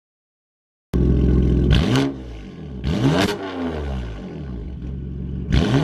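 BMW M4's twin-turbo inline-six through an aftermarket Armytrix valved exhaust with downpipes, revved repeatedly after starting abruptly about a second in, its pitch rising and falling with a sharp crackle at each of three blips. Very loud.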